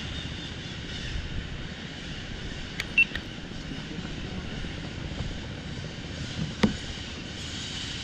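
Steady outdoor hiss of wind and forest ambience over a mangrove creek, with a short high chirp about three seconds in and a single sharp knock later on.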